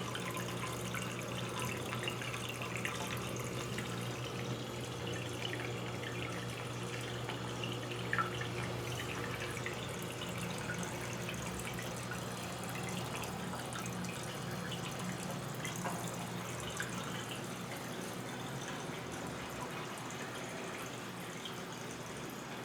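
Brastemp 14 kg washing machine running, water splashing and dripping inside the drum over a steady low motor hum, with one brief louder splash about 8 seconds in.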